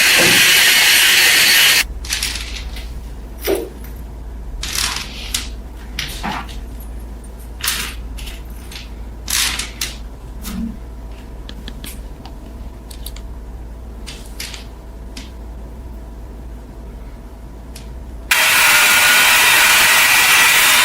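A loud, hissing workshop power tool runs and cuts off suddenly about two seconds in. A low steady hum follows, with scattered clicks and scrapes of metal being handled. The hissing tool starts up again abruptly near the end.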